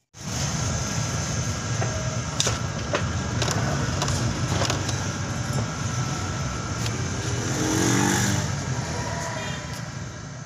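Homemade dust collector's electric blower motor running steadily, with air rushing through the hose into the plastic collection bag. It starts abruptly, has a few light knocks along the way, swells about eight seconds in, then fades.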